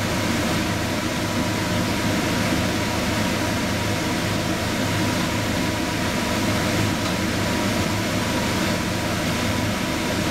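Saucepan of cola boiling hard down to a thick sugar syrup: a steady bubbling, hissing boil over a steady low hum. Most of the water is gone and the syrup is thickening and starting to burn.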